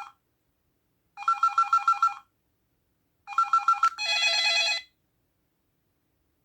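Samsung SPH-A790 ringtone played through its Yamaha SMAF sound chip: a rapid trill between two pitches in bursts about a second long, like a telephone ring, coming twice. A steadier burst of different tones follows about four seconds in, then it stops about five seconds in.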